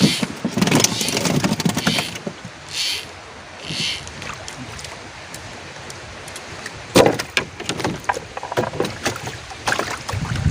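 Water splashing in short swishes, with scattered sharp knocks and clatters.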